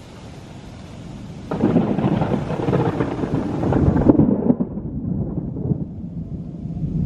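Thunder: a sudden loud peak about a second and a half in that rolls on as a long low rumble.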